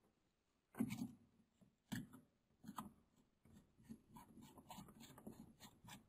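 Faint handling noise as a washing machine's drain valve plug and spring are fitted back into the drain outlet: small plastic clicks and knocks, a sharper one about two seconds in, then a run of light taps and rubbing from the gloved hands.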